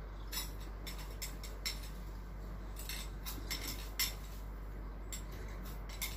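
Cutlery clinking against dishes: about a dozen light, irregular taps, the loudest about four seconds in.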